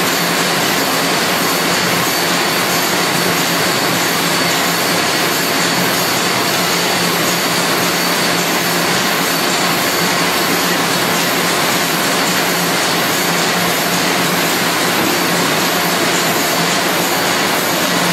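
Automatic pocket envelope making machine running at a steady pace: a constant loud whir and hiss with a low hum and a faint high whine.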